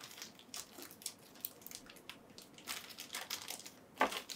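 Toy figure packaging being handled: faint crinkling and rustling with scattered small crackles, and a sharper crackle near the end.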